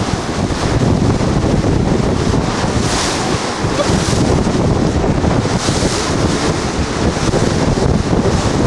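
Wind buffeting the microphone on a boat under way, over the rush and splash of sea water, with gusts swelling at about three and six seconds in.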